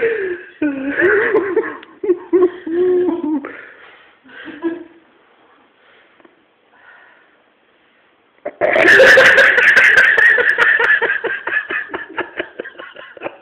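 People laughing. First comes some voiced giggling, then a brief hush, then loud, hearty laughter breaks out suddenly about eight and a half seconds in and slowly tails off.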